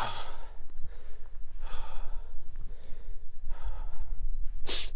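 A person breathing hard while climbing a steep rocky scramble: about four heavy breaths, one every couple of seconds, the last the loudest.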